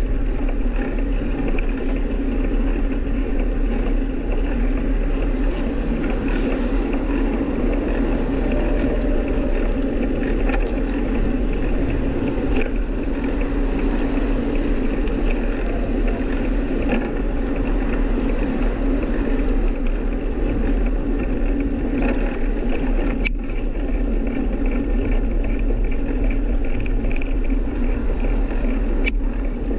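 Steady rushing wind and road noise on a GoPro Hero 5 Black's microphone during a bicycle ride, heaviest in the low end.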